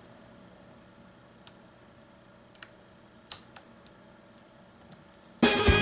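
A few faint, scattered metallic clicks of lock picks and a tension bar working the pins of an Ace rekeyable padlock. Near the end, loud swing-style music with drums starts up.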